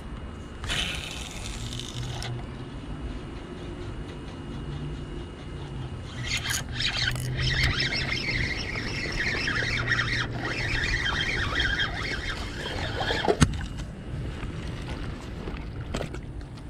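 Spinning reel and fishing line working as a hooked largemouth bass is fought and reeled in to the bank: a short hissy squeal about a second in, then a longer stretch of scraping, rushing noise in the middle, ending in one sharp knock.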